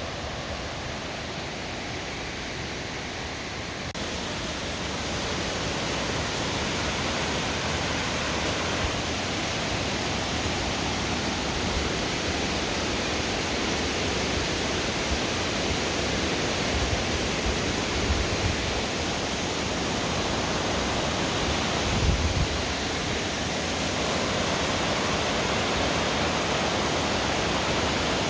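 Steady rush of a mountain stream or waterfall, a continuous even hiss of water that grows louder about four seconds in. A few brief low thumps come near the end.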